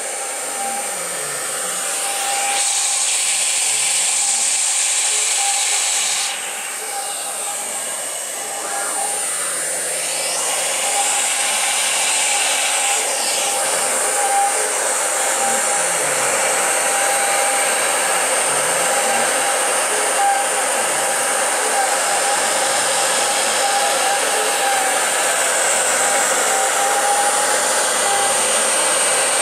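CNC mill spindle running at high speed with a steady high whine and loud whirring hiss as a small end mill cuts a carbon fibre sheet. Lower motor tones glide up and down in pitch again and again as the axes speed up and slow down.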